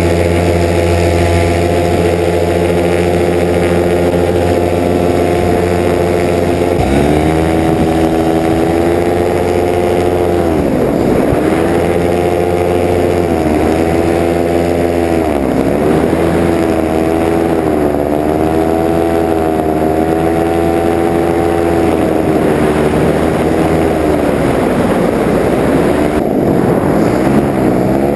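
Paramotor engine and propeller running steadily in flight. About seven seconds in the engine note changes, then it dips and recovers several times as the engine speed falls and picks up again.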